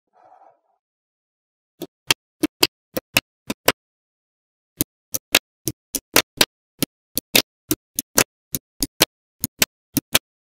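Small magnetic balls snapping onto one another in a string of sharp clicks, about three a second, with a pause of about a second after the first handful.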